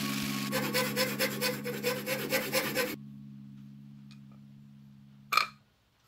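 Jigsaw cutting a small piece of G-10 fiberglass laminate, pulsing about four times a second as the blade bites, then switching off about three seconds in. A single sharp knock near the end.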